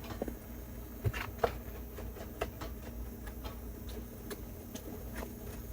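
Light, irregular clicks and taps of kitchen utensils over a low steady hum: a handful of small knocks, a few with a brief ring.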